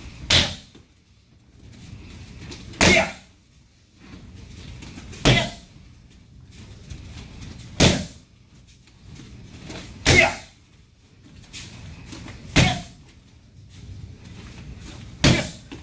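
Kicks landing on a handheld kicking shield: seven sharp smacks, about one every two and a half seconds.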